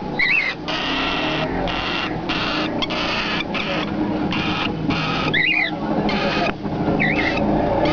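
Young cockatiel chicks giving harsh, rasping begging calls in repeated half-second bursts, with three short whistled chirps mixed in. A steady low rumble runs underneath.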